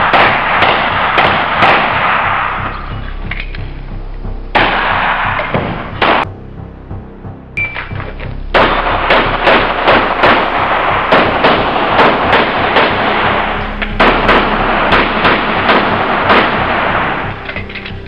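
Semi-automatic pistol shots fired in quick strings, mixed with loud background music. The music drops away for about two seconds a little past the middle, then returns with the shots coming thick and fast.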